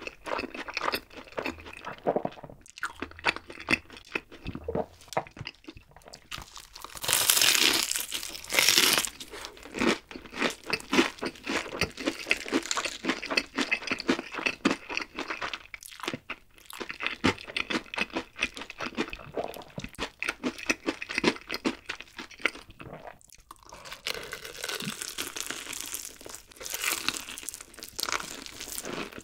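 Close-miked crunching and chewing of crispy breaded fried chicken, with dense crackling of the crust as it is bitten and chewed. It is loudest about seven to nine seconds in and again near the end.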